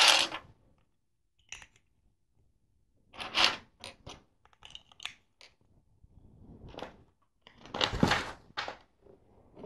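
LEGO plastic bricks clattering and clicking as a hand rummages through a pile of loose pieces and fits bricks together: a series of short rattles and clicks, loudest about three and a half and eight seconds in.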